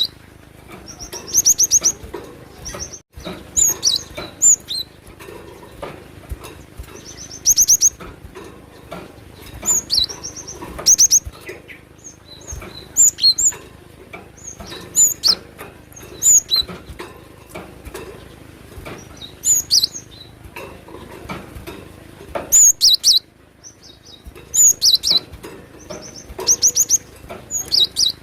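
Cinereous tit (glatik batu) singing: short bursts of rapid, high-pitched repeated notes and quick trills, coming every second or two with brief pauses between them.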